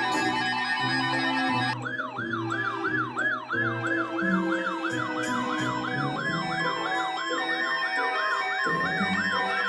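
A siren in a fast yelp, rising and falling about twice a second, starting about two seconds in over background music.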